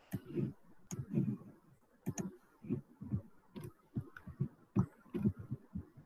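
Computer mouse clicking and its wheel being scrolled, a run of irregular soft clicks and knocks.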